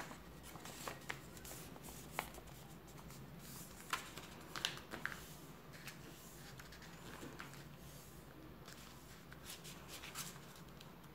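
A sheet of paper being folded and creased by hand on a tabletop: soft rustles with a few sharp crinkles and taps, over a faint steady hum.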